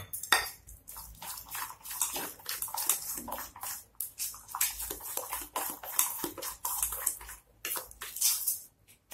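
A spoon stirring runny dosa batter in a steel bowl: a quick, irregular run of wet squelching strokes with the spoon scraping the bowl, as extra water is worked into the batter.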